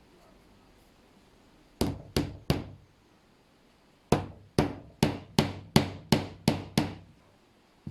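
Hammer driving shelf-support holders into wooden shelf uprights: three strikes, a pause of about a second and a half, then a run of eight evenly spaced strikes, each ringing out briefly.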